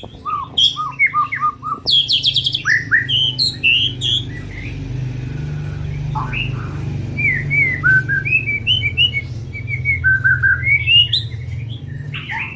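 White-rumped shama (murai batu) singing a fast, varied run of short whistled sweeps and chirps, with a steady low hum underneath.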